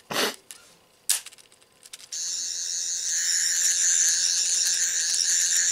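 Toy sonic screwdriver from Doctor Who playing its electronic sound effect, a steady, high warbling buzz that starts about two seconds in, after a couple of handling clicks.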